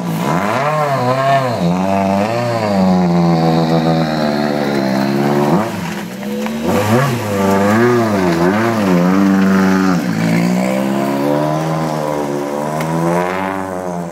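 Citroën World Rally Car's turbocharged four-cylinder engine being revved in repeated throttle blips, the pitch swinging up and down over and over, then running more steadily for a few seconds before one more rise near the end.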